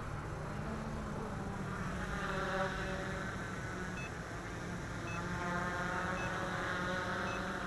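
Quadcopter drone hovering, its motors and propellers giving a steady whine of several tones that shift a little as it holds position. From about halfway through, a short faint beep repeats about once a second.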